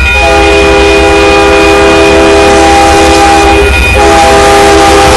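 Freight locomotive's multi-chime air horn blowing as the train approaches, several notes sounding together as a chord. One long blast of about three and a half seconds is followed by a brief break and a second blast. Under the horn is a heavy low rumble from the oncoming train.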